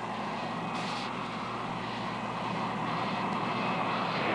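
Steady roar of aircraft engines, growing slightly louder toward the end, with a short hiss about a second in.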